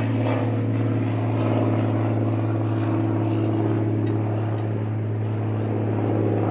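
A steady engine-like drone that holds one even pitch throughout, with two short clicks about four seconds in.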